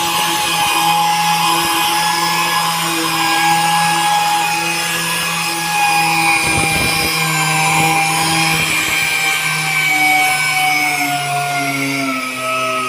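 Pneumatic random-orbital sander sanding a car's boot lid: a steady air-motor whine over a hiss of abrasive on the panel. Its pitch sags a little toward the end.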